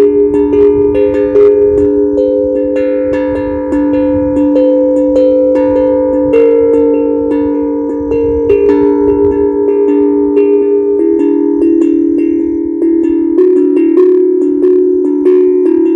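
Steel tongue drum (HAPI drum) played by hand, its pentatonic notes struck in quick succession and left ringing into one another.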